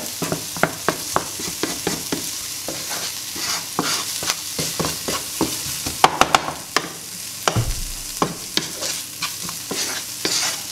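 Diced boneless chicken with onion and masala frying in a non-stick pan, sizzling steadily while a spatula stirs it, scraping and tapping on the pan with many sharp clicks. The clicks bunch together about six seconds in, with a dull knock soon after. This is the last stir of the chicken filling as it finishes frying.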